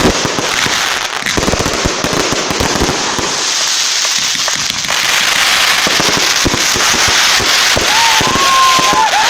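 Firework batteries (cakes) firing, with dense crackling and many rapid bangs throughout. Gliding whistles rise and fall near the end.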